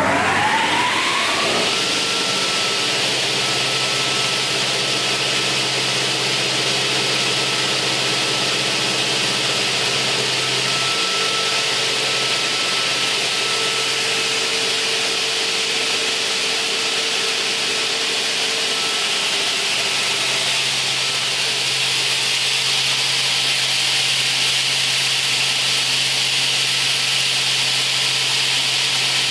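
OGAM PO-340 multi-rip saw starting up: its whine rises in pitch over about the first two seconds as the blade spins up to speed, then runs steadily with a hissing whine, spinning free without cutting.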